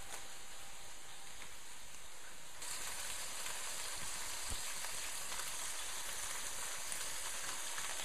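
Ham-wrapped veal escalope rolls, tied with string, sizzling steadily as they brown in hot oil in a stainless pot. The sizzle turns brighter and a little louder about two and a half seconds in.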